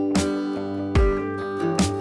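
Background music: strummed acoustic guitar chords, a fresh strum a little under once a second.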